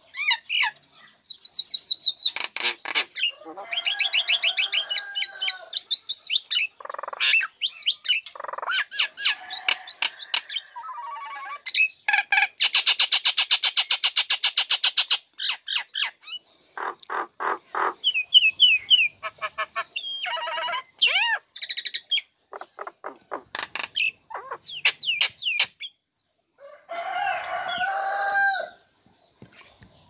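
Female common myna singing a varied, fast string of whistles, slurred notes, clicks and harsh chatter, with a long rapid rattle in the middle and a few short pauses.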